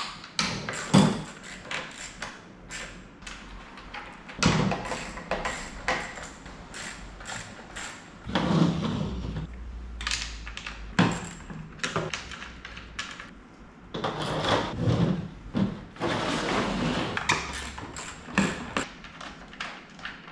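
Irregular clicks, knocks and scraping of hand tools on a Zodiac Flo Pro pool pump as the six bolts holding its wet end to the motor are undone.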